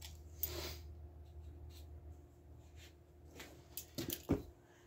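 Faint rubbing and scratching from hands handling something, with a few light knocks near the end, over a steady low hum.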